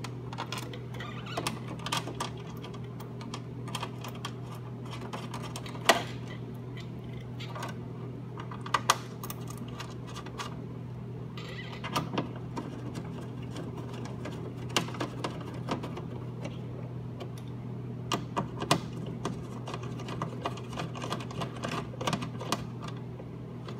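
Irregular small clicks and metallic taps of a license plate being bolted by hand with a screwdriver into M6 rivnuts on a car's rear panel. A steady low hum runs underneath.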